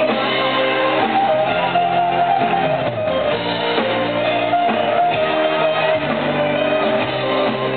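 Live band playing an instrumental passage led by a bouzouki's plucked melody.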